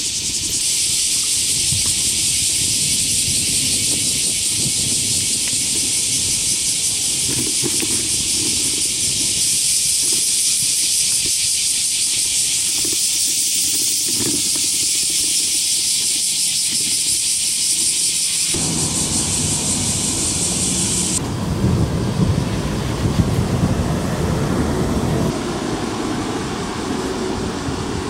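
Loud, dense chorus of cicadas, a steady shrill buzz. Just past the two-thirds mark it gives way to a broad, lower rumble of road traffic and wind.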